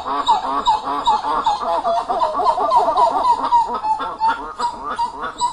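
GoldenPalace.com titi monkeys (Madidi titi) calling: a fast, continuous run of repeated rising-and-falling notes, two voices overlapping at first. About halfway through it settles into a steadier run of single higher notes.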